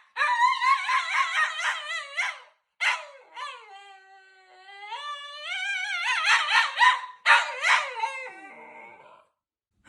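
Alaskan Klee Kai (miniature husky) howling and yowling in reaction to a fake sneeze. A run of short rising-and-falling cries gives way to one long howl from about three to six seconds in that dips and then climbs again. More cries follow and tail off near the end.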